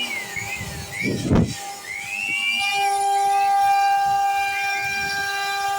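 CNC router carving: a steady high whine with short pitch glides that rise and fall as the machine moves, and a brief low rumble about a second and a half in.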